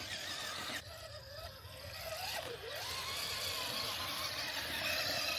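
RC rock crawler's electric motor whining as it is driven, its pitch wavering up and down, then holding steady.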